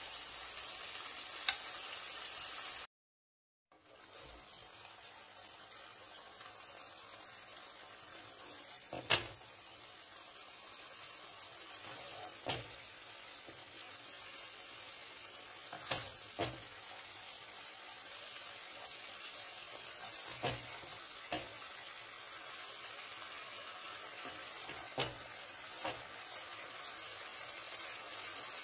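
Chicken sauté sizzling steadily in a hot pan as it is spooned out, with about ten sharp knocks of a wooden spoon against the pan and the plate scattered through it. The sound cuts out completely for under a second about three seconds in.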